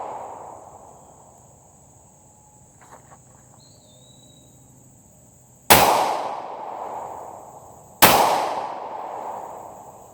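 Two handgun shots about two seconds apart, the first a little past halfway and the second near the end, each dying away slowly, fired at a steel gong; a few faint clicks about three seconds in.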